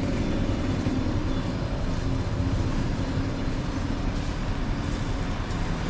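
Steady low rumble of street traffic with a constant hiss of outdoor noise.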